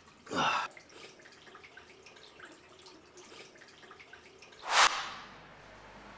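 Water splashing and dripping as a man washes his face with his hands, with a short splash just after the start and one loud sudden burst about five seconds in.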